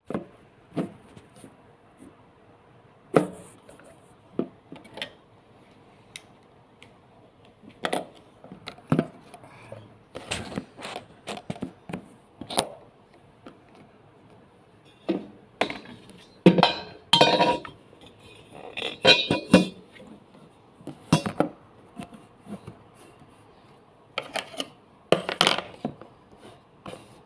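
Scattered clicks, taps and light metallic clinks from hand-handling the bobbin area and threading parts of a Singer 1301 sewing machine, with no motor running.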